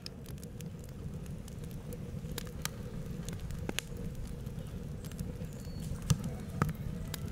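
Wood fire burning: a low, steady flame rumble with scattered sharp crackles and pops from the burning logs, and two louder pops near the end.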